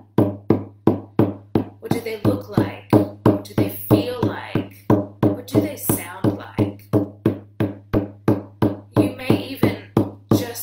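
Hand drum struck with a beater in a steady beat of about three strikes a second, with a woman's wordless voice over it for stretches.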